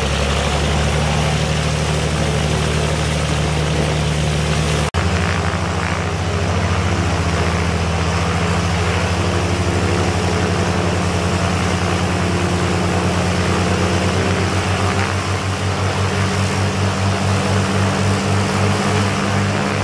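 A de Havilland Devon's two six-cylinder Gipsy Queen piston engines running steadily together on a ground run, both propellers turning. There is a brief break about five seconds in. Near the end the sound takes on an even throb, about twice a second.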